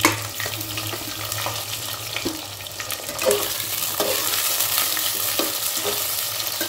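Sliced onions sizzling in hot mustard oil in an aluminium pressure cooker, with a metal spatula scraping and knocking against the pot as they are stirred. The sizzle grows louder about three seconds in.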